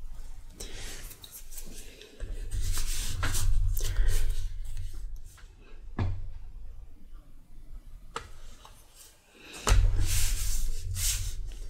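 Leather pieces handled, rubbed and pressed flat by hand on a granite slab: rustling and rubbing, with a few sharp knocks and two spells of deep thudding from hands pushing down on the slab.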